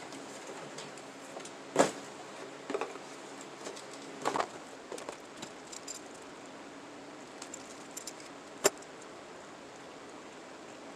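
Metallic clicks and clinking from a CO2 BB revolver replica being handled, with two loud sharp snaps, one about two seconds in and one near the end.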